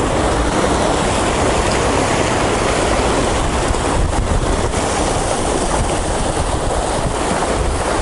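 Sea surf washing and breaking against shore rocks, with steady wind buffeting the microphone.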